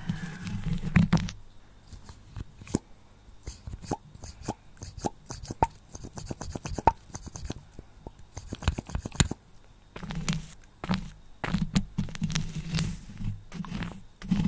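Lipstick rubbed and pressed against a microphone up close: scattered sharp sticky clicks and taps, with low scraping rubs at the start and again from about two-thirds of the way through.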